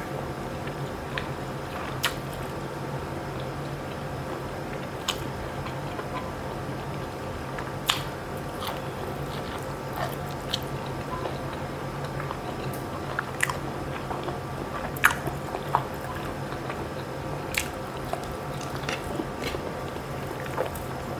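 Close-up chewing and mouth sounds of a person eating rice and curry by hand, with scattered short sharp smacks and crunches. A steady low hum runs underneath.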